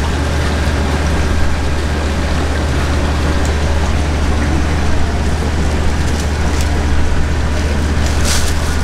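Steady low hum under a constant rushing hiss, with a few faint clicks near the end.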